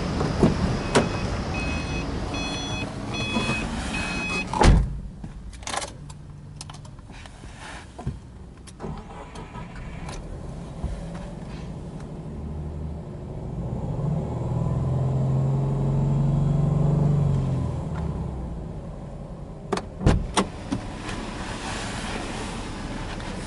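Subaru Impreza 1.5i-S's 1.5-litre flat-four engine running at a fast idle. A warning chime beeps repeatedly for the first few seconds, and a loud clunk comes about five seconds in. In the middle the engine note swells and holds for a few seconds, with a few clicks near the end.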